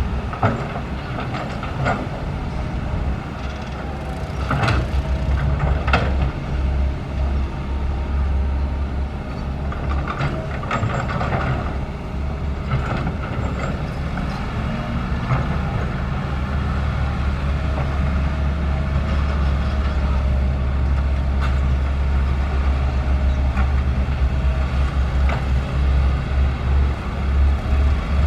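SANY SY135F excavator's diesel engine running steadily under load while it digs, with a faint hydraulic whine at times and occasional clanks and knocks from the bucket and soil.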